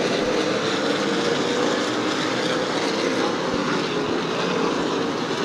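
A field of super late model stock cars running at race speed on a short oval, their V8 engines blending into one steady drone.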